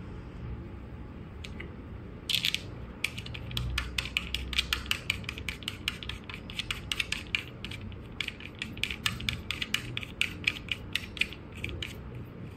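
Metal machine screw twisted by hand in a polypropylene honeycomb composite panel: a rapid, irregular run of sharp clicks and creaks as the threads turn in the plastic, starting about two seconds in and stopping near the end, over a low steady hum.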